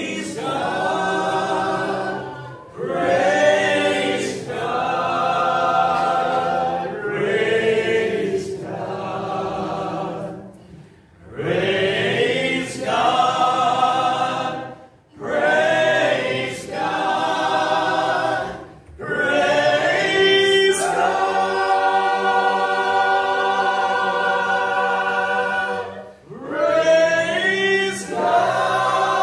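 Southern gospel quartet of men's voices singing in four-part harmony (tenor, lead, baritone and bass), phrases broken by short breaths, with a long held chord about two-thirds of the way through.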